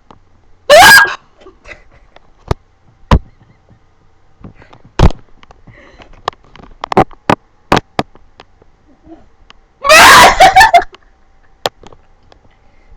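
A person hiccuping over and over: about a dozen short, sharp hiccups at irregular intervals. Two of them are loud yelping whoops, one about a second in with a rising pitch and one near ten seconds in.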